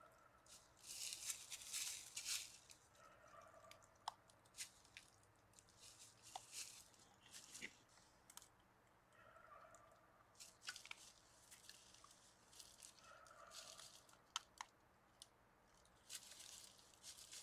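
Faint crunching and rustling of a raccoon and deer feeding on the ground among dry leaves, in several bursts with sharp clicks now and then. A faint short tone comes three or four times.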